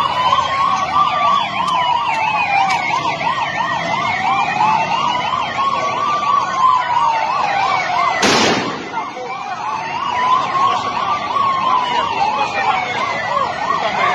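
Police escort sirens sounding together: a slow wail rising and falling on a cycle of about five seconds, over a fast yelp warbling about four times a second. A single sharp bang cuts through just past the middle.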